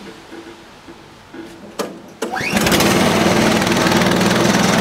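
The band saw mill's small gasoline engine is pull-started and catches on a single pull. After a knock, the recoil starter whirs up about two seconds in, and then the engine runs steadily. It is the first run of the brand-new engine, now that topping up the oil stops the low-oil sensor from tripping.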